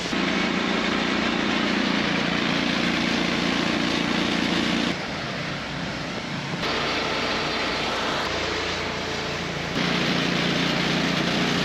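Steady drone of grain-loading machinery running, a portable grain auger and its engine, with a broad hiss. The sound drops and jumps abruptly a few times: about five seconds in, a second and a half later, and near the end.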